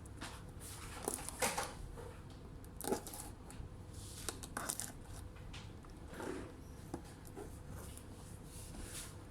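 A laptop box and its packaging being handled and opened by hand: irregular rustles, tearing and light knocks, loudest about a second and a half in and again around three seconds.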